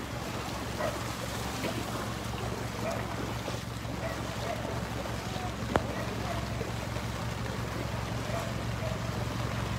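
Wading through shin-deep floodwater in falling rain: a steady hiss of rain and wind, with faint sloshing of feet in the water. Under it runs the low hum of an idling truck engine. A single sharp click comes about six seconds in.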